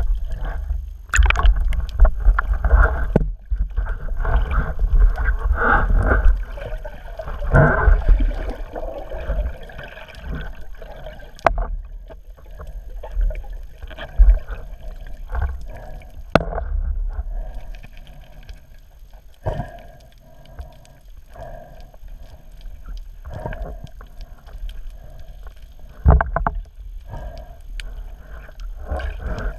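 Water gurgling and sloshing around a camera in the sea, with a low rumble and scattered sharp clicks and knocks; it is busiest in the first ten seconds.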